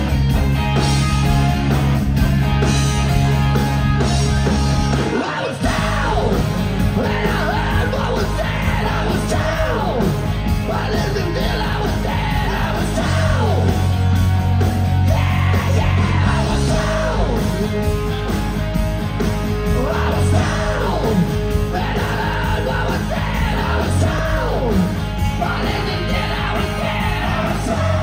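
Live hard rock band playing: electric guitars, bass and drums through stage amplification, with a short break about five seconds in. A male lead vocal then sings and yells over the band.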